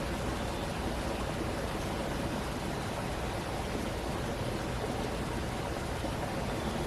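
A stream flowing in a steady, even rush of water.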